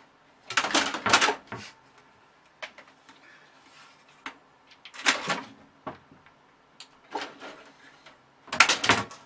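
A cat scrabbling and climbing on a cloth curtain beside a computer case: several short bursts of rustling and scraping, with a few sharp clicks between them.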